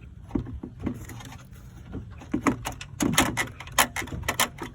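Hard plastic coolant reservoir tank knocking and clicking against its mounting brackets as it is worked into place. A few scattered knocks at first, then a quick run of sharp knocks and rattles in the second half.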